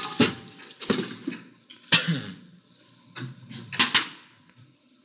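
A few sharp knocks and clatters of household objects being handled, the loudest near the start, about two seconds in, and a close pair near the end.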